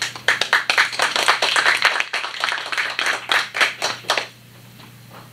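A small audience applauding, quick uneven hand claps that stop about four seconds in.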